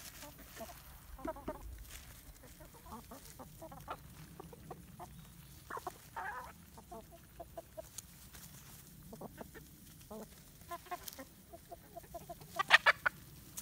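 A flock of chickens clucking softly and intermittently while pecking at scraps, with a short run of louder calls near the end.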